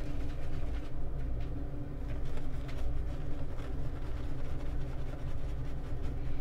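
Boar-bristle shaving brush scratching and swishing as it works lather onto a bearded face, in irregular strokes, over a steady low rumble.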